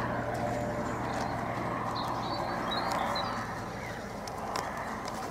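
Eurocopter EC135 P2 helicopter flying over, its four-blade main rotor beating steadily, fading slightly as it moves away. A few short bird chirps come about two to three seconds in.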